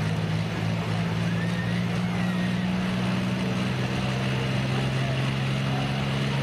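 A pulling tractor's engine running steadily at low speed, a deep, even hum with no revving.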